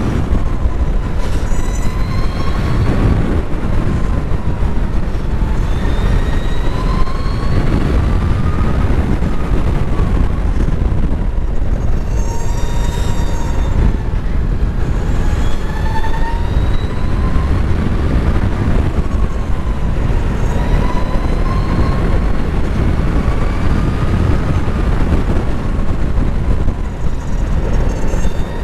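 LiveWire electric motorcycle's motor whining at speed, its pitch gliding up and down as the bike speeds up and slows, over heavy wind rushing across the microphone.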